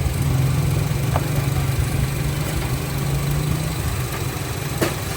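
Honda Civic engine idling steadily, with a faint tick about a second in and a sharper click near the end.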